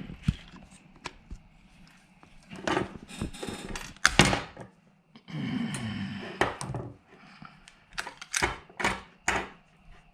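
Irregular sharp metallic clicks and knocks from hand work on a lawn mower starter solenoid, with the loudest snap about four seconds in and a quick run of clacks near the end.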